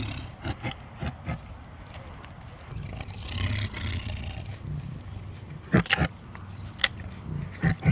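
A tiger growling over her meat, a low rumble about three to four seconds in: the food-aggressive warning of a tiger guarding her meal. Several loud, sharp cracks follow near the end.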